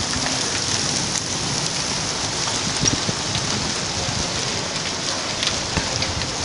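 Hailstorm: rain and hail falling steadily onto bare ground, an even hiss with a few faint ticks scattered through it.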